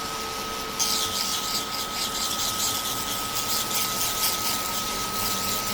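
Small dust-collector fan running with a steady high whine. From about a second in, a pedal-switched rotary sanding tool grinding on a 3D-printed part adds a high, scratchy, flickering hiss.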